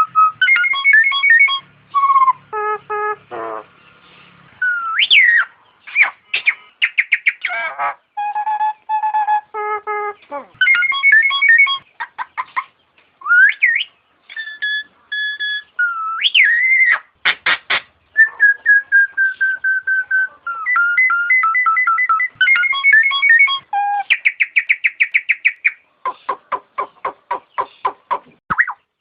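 Nias hill myna calling: a varied string of loud whistled notes, some held steady and some gliding up or down, broken by quick runs of rapidly repeated notes, the longest near the end.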